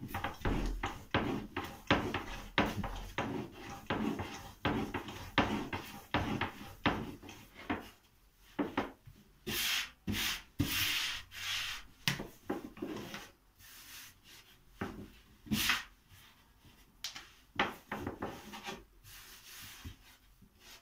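Long, thin wooden rolling pin (oklava) rolling and rubbing over a floured wooden pastry board as dough is rolled into a thin yufka sheet, in quick repeated strokes, about three a second. After about eight seconds the strokes come further apart.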